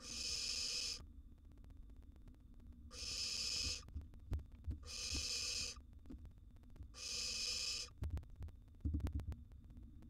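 Barn owl nestlings' hissing begging calls: four long hisses of about a second each, roughly two seconds apart. Near the end come a few sharp knocks and scuffles of birds moving in the wooden nest box.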